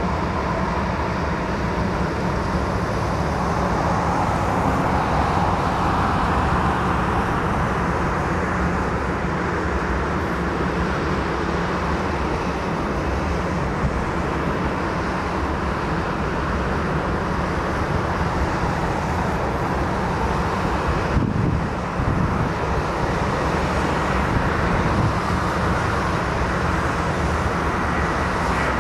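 Jet engines of an Airbus A330-300 (Rolls-Royce Trent 700s) on final approach at low approach thrust, heard as a steady roar. A single short click comes about 21 seconds in.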